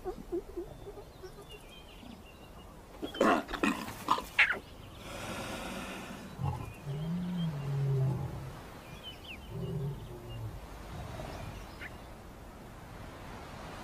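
Lionesses growling and snarling as they attack a lion cub: a cluster of sharp, loud snarls about three to four seconds in, then deep growls that rise and fall through the middle.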